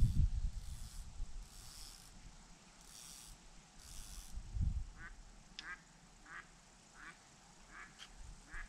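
Knocks and rustles as fishing rods are handled on a metal rod pod, loudest right at the start, with another knock a little after four and a half seconds. From about five seconds in, a bird gives a series of about half a dozen short calls, roughly one every half second to second.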